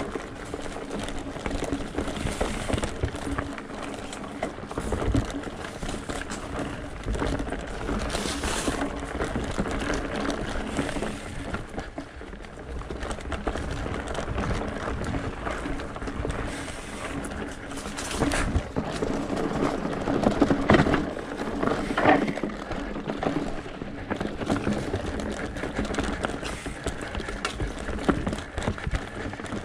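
Mountain bike riding up a rocky dirt trail: steady tyre and drivetrain noise with scattered knocks and rattles as it rolls over rocks, busier and louder about two-thirds of the way through.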